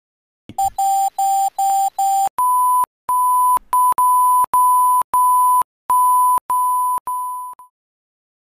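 A series of electronic beeps: about five quick beeps at a lower pitch, then about nine longer beeps at a higher pitch, stopping shortly before the end.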